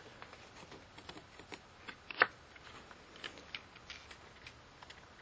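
Thin plastic diffuser sheets from an LED TV's backlight being lifted and handled: faint rustling with scattered small clicks, and one sharper click a little over two seconds in.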